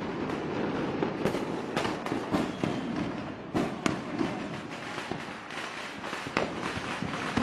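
Fireworks going off: a dense, irregular string of bangs and crackles with no pause.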